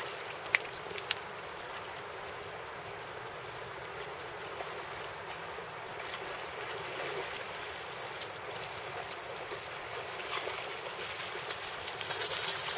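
Steady rushing of river water, with a few faint knocks and a louder burst of noise about a second before the end.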